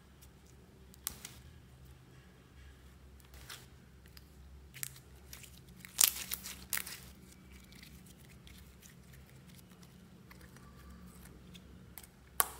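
Clear glitter slime being stretched, folded and pressed by hand, giving sticky crackles and pops. A quick cluster of louder pops comes about six seconds in, and another near the end.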